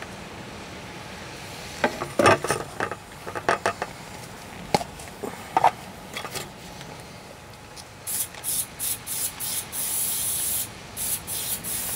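An aerosol spray can hissing in a rapid series of short squirts with one longer spray, after a few seconds of clattering knocks as things are handled. The user is unsure whether the can he is spraying is cooking spray or air spray.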